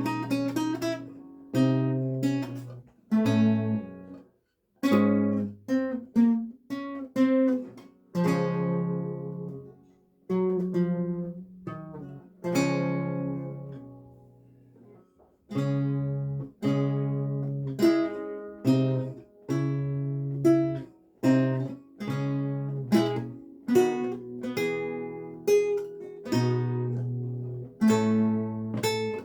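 Renaissance lute played solo, plucked chords and single notes, each ringing and then dying away. About halfway through, the playing fades to near silence for a moment, then picks up again.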